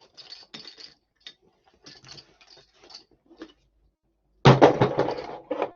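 Hand tools being handled and packed into a tool bag: light clicks and rustling, then a louder clatter of tools being set down about four and a half seconds in.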